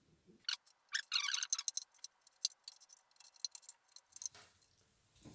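Torque wrench ratcheting and clicking as the small oil pan bolts are tightened to 9 Nm, in an irregular run of sharp clicks with a quick flurry about a second in.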